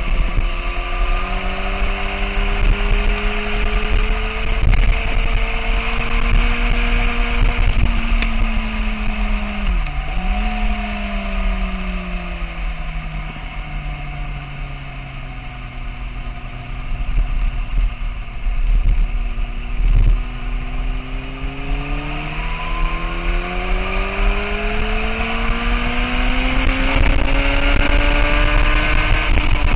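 Sport motorcycle engine at track speed, heard from a camera on the bike's tail. Its pitch climbs and falls in long sweeps as the rider opens and closes the throttle, with a quick dip and recovery about ten seconds in and a long climb toward the end. Wind rushes steadily over the microphone.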